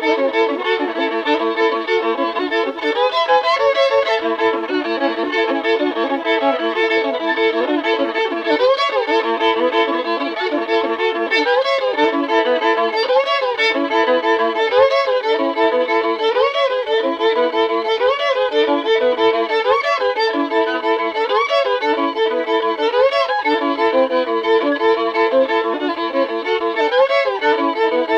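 Solo fiddle playing a droning hillbilly-blues tune: a steady bowed drone under a repeating phrase of sliding, swooping notes that comes round about every second and a half.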